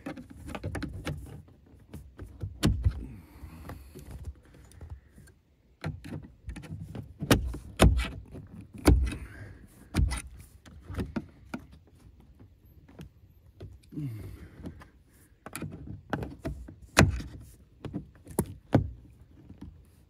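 Flat-blade screwdriver prying and scraping at a jammed VW Passat B8 boot lock latch, with irregular clicks and knocks of metal and plastic as the caught latch hook is levered back. A few sharper knocks fall in the middle and near the end.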